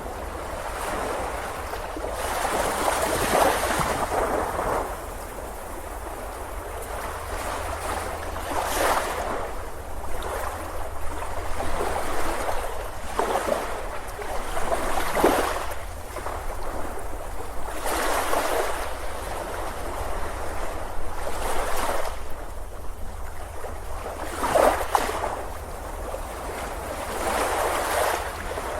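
Ocean surf breaking on a beach: a steady wash of water that swells and eases, with a wave rushing in every few seconds.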